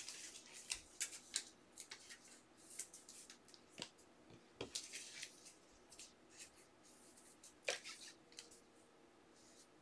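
Trading cards being handled and slid across a tabletop: faint rustles and light clicks, with a couple of sharper clicks, one near the middle and one about three quarters through.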